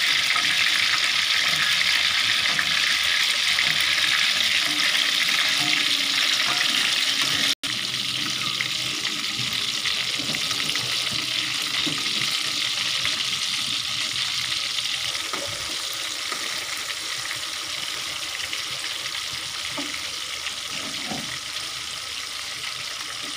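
Hot oil sizzling steadily around wrapped minced-pork rolls deep-frying in a wok. The hiss cuts out for an instant about a third of the way in, then slowly quietens toward the end. There are a few light taps as metal tongs turn the rolls.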